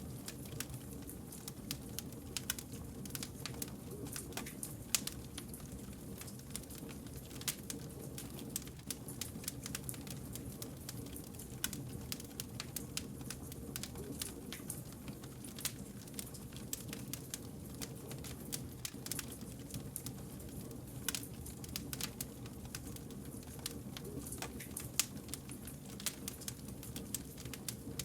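Wood fire burning, with irregular sharp crackles and pops from the burning logs over a steady low rush of flame.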